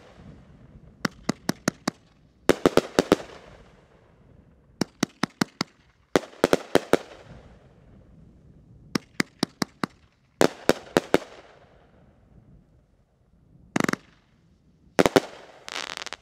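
Cutting Edge 'Unstoppable Rider' 500-gram fireworks cake firing in volleys: each volley is a quick run of four to six sharp bangs as the shells burst, with a pause of a second or two between volleys. Near the end come two shorter hissing bursts.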